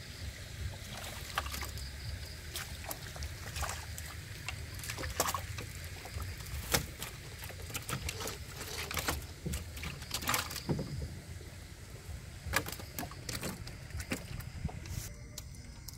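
Water splashing and sloshing in irregular sharp splashes, roughly one a second, over a low steady rumble.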